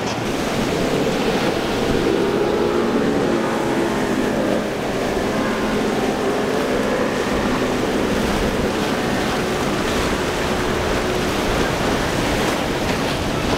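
Motorboat engine running, its pitch wavering for several seconds as a boat passes, over surf and waves in the inlet and wind buffeting the microphone.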